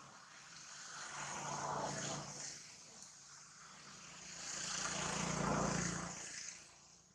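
A passing motor vehicle's engine, swelling up and fading away twice; the second pass is the louder.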